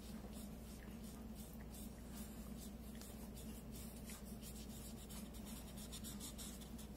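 Felt-tip markers scratching on paper in quick, irregular back-and-forth strokes as letters are coloured in. Faint, over a steady low hum.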